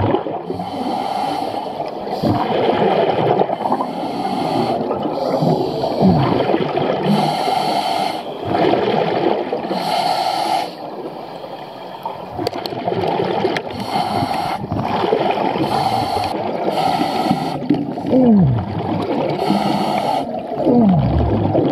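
Scuba diver's regulator breathing heard underwater: repeated gurgling rushes of exhaled bubbles with short pauses between breaths, and a few brief falling tones.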